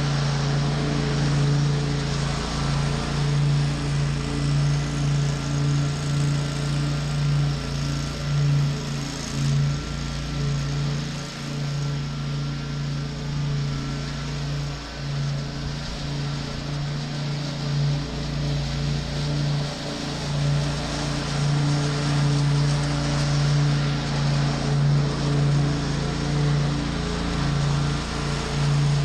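Zero-turn riding mower engine running steadily under mowing load, a constant low drone that swells and fades a little as the mower moves nearer and farther away.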